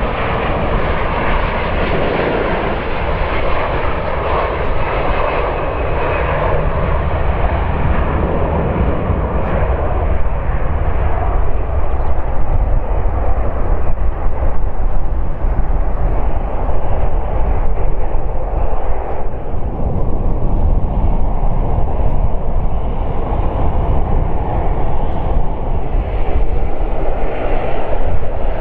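Two Rolls-Royce Trent 772B turbofans of an Airbus A330-200 running at takeoff thrust as the jet rolls down the runway, lifts off and climbs away. A loud, steady rumble; the higher hiss fades after several seconds, leaving a deep rumble as the aircraft moves off.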